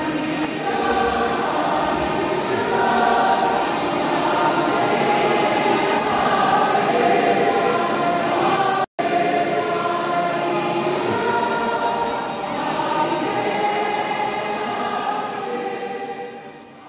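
Many voices singing a hymn together, like a church choir with the congregation. The singing breaks off for an instant about nine seconds in, then carries on and fades away at the end.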